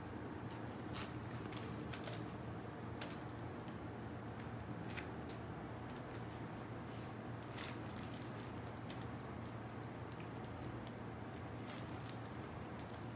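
Samoyed puppy chewing and tearing at a tissue strip from a tissue-pack toy: scattered soft crinkles and clicks at irregular intervals over a steady low room hum.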